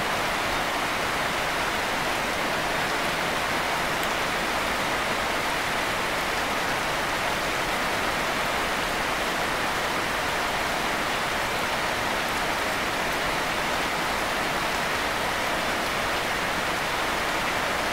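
Steady rain falling: an even hiss that holds at one level without let-up.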